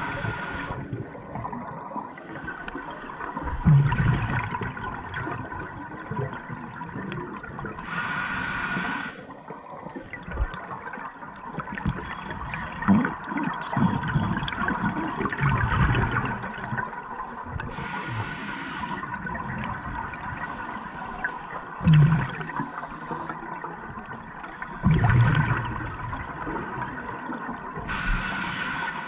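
Scuba diver breathing underwater through an open-circuit regulator: a hiss of about a second repeating roughly every ten seconds, with bursts of low bubbling between the hisses.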